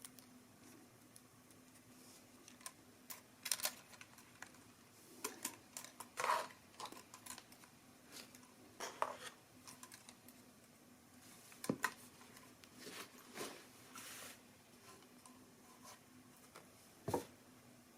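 Scattered light clicks, taps and brief rustles of small plastic parts and accessories being handled, coming irregularly every second or two.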